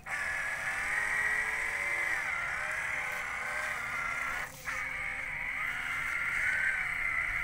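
Huina RC dump truck's electric drive motor and gearbox whining as it crawls through shallow muddy water, the pitch wavering up and down with the throttle. The sound drops out briefly about halfway through.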